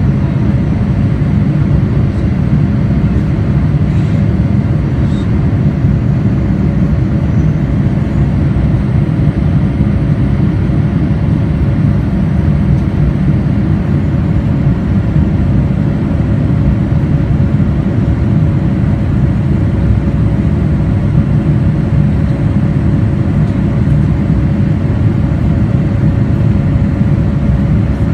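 Steady cabin roar of a Boeing 787-9 during climb-out, its GE GEnx-1B turbofan engines at climb power and air rushing past the fuselage, heard from a window seat beside the engine. A faint steady tone sits above the low roar.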